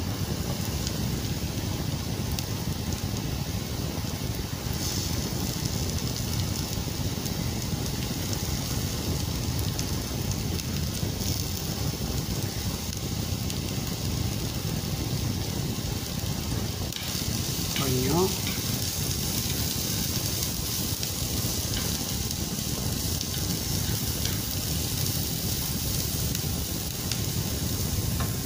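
Chopped garlic and sliced onion sizzling as they fry in a nonstick pan, stirred with a spatula. The sizzle is a steady hiss that turns brighter and louder about two-thirds of the way through.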